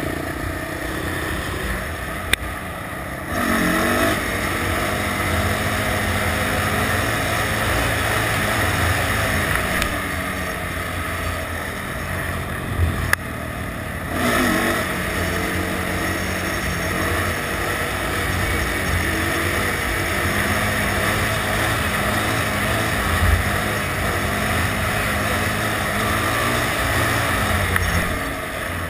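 Quad ATV engine running under way, heard on board the quad. The throttle drops off briefly about three seconds in and again around fourteen seconds, and each time the engine revs back up with a rising pitch.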